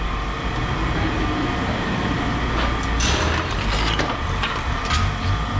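Steady low engine rumble with scattered metallic clanks and rattles from scrap metal being handled, the clatter thickest around the middle and again near the end.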